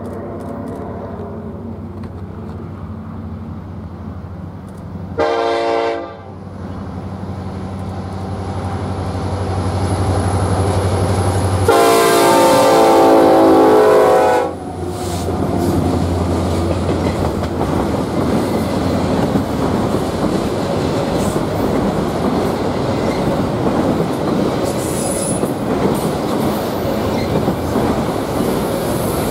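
Union Pacific diesel freight train approaching and passing: the locomotives' engine drone grows louder, the horn sounds a short blast about five seconds in and a long blast of nearly three seconds as the locomotives go by, then the autorack cars roll past with steady wheel-on-rail noise.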